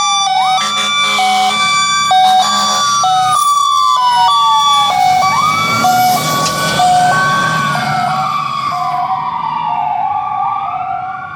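Fire engine and ambulance sirens on an emergency response. One siren wails slowly up and down while another steps quickly back and forth between two tones. Deep air horn blasts sound over them for the first few seconds, and the sirens grow fainter near the end.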